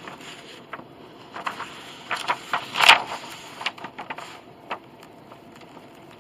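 Irregular clicks, taps and short scrapes of hand tools and measuring gear being handled on a work table, with one sharper knock about three seconds in.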